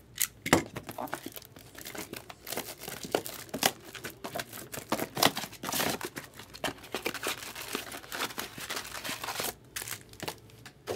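Cellophane shrink-wrap being torn and crumpled off a sealed trading-card box: a dense run of irregular crackles.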